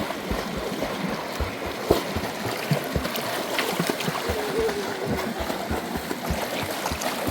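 River water rushing, with frequent small irregular splashes and knocks close by.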